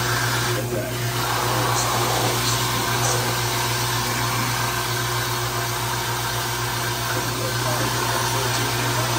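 Drill press drilling a bowling ball, its motor running together with the dust-extraction vacuum at the bit: a steady low hum under a constant whooshing noise.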